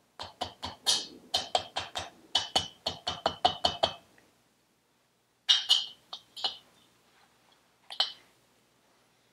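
Rapid series of sharp metallic taps, about five a second for roughly four seconds, as a hammer strikes the piston sitting in a Vespa PX cast-iron cylinder barrel. A few scattered metal clicks follow, the last near the end.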